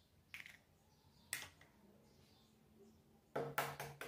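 A few light taps and knocks, with a louder short cluster of knocks near the end: eggshells and kitchen things being handled and set down on a table while eggs are cracked into a plastic tub.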